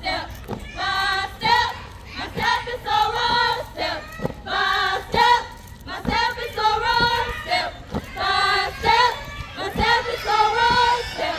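A group of women's voices chanting in unison in a steady rhythm, with sharp thumps on the beat.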